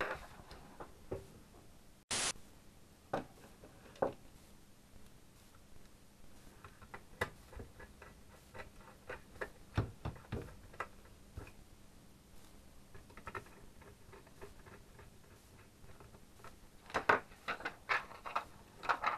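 Scattered clicks, taps and light knocks of circuit boards, cable connectors and a metal chassis being handled on a workbench. A short hiss comes about two seconds in. Near the end a plastic insulating sheet makes a dense run of crackly clicks as it is fitted.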